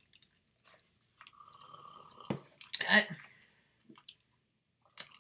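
Mouth noises of people eating spoonfuls of yogurt, in a few short, irregular bursts, the loudest about three seconds in.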